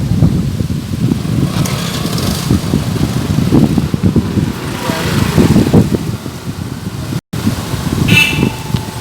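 Strong wind buffeting the microphone: a loud, uneven low rumble. A brief high-pitched tone sounds about eight seconds in.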